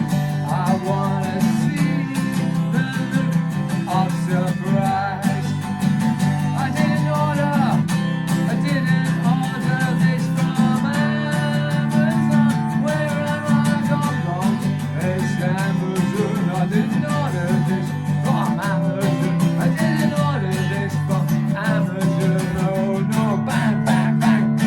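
Background song with strummed acoustic guitar.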